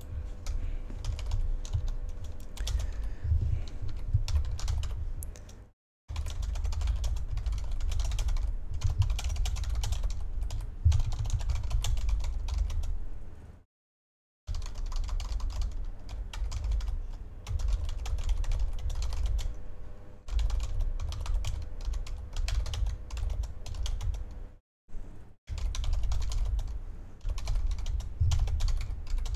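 Typing on a computer keyboard: a fast, continuous stream of keystrokes with dull thuds underneath, stopping dead three times for a moment.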